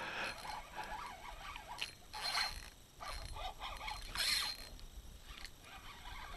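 Fishing reel worked in short, irregular bursts while a hooked smallmouth bass is played on the line.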